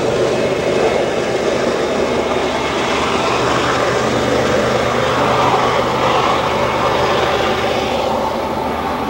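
Diesel train engine running steadily, with a steady low hum under a broad rushing noise, easing off slightly near the end.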